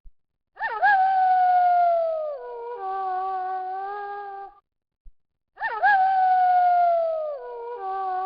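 A wolf howling twice, the same howl both times. Each howl starts with a quick rise, slides slowly down in pitch, then holds a steadier note before breaking off.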